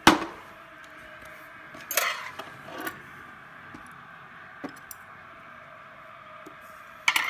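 Tableware knocking on a tray: a sharp knock as a plate is set down, two more knocks about two and three seconds in, and a short run of clatters near the end.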